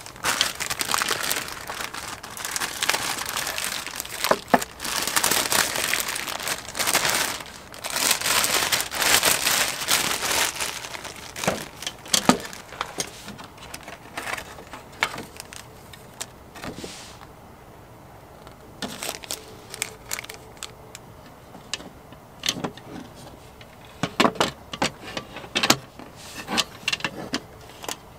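Clear plastic packaging crinkling and rustling as a folding mini shelf is unwrapped, dense for about the first ten seconds. After that come scattered clicks and knocks, clustering near the end, as the shelf's steel-rod frame and wooden slats are handled and unfolded.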